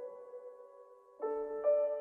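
Soft, slow background music: held notes fading away, then new notes struck a little over a second in.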